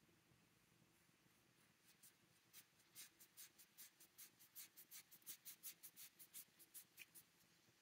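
Faint, quick strokes of a paintbrush spreading ink across a paper swatch card, about four or five strokes a second, starting about two seconds in and stopping shortly before the end.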